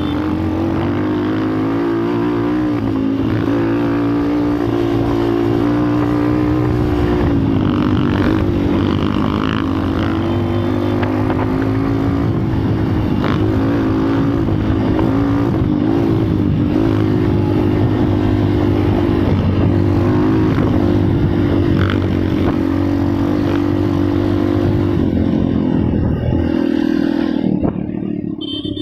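Vehicle horn sounding continuously with a slowly wavering pitch, over a steady low hum, fading out near the end.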